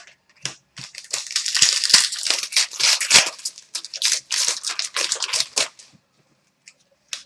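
Crinkling and rustling of a trading-card pack's wrapper being torn open and handled: a dense crackle lasting about five seconds, then a faint click near the end.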